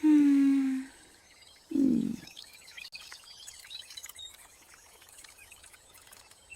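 A cartoon character's vocal sound effects: a short held call with a slightly falling pitch, then a brief rough grunt about two seconds in. Faint high chirping follows.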